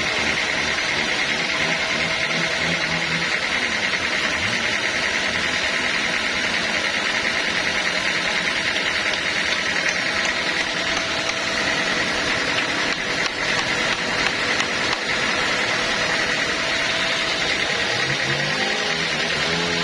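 Sawmill machinery running steadily, with a continuous high whine from the saw cutting through teak.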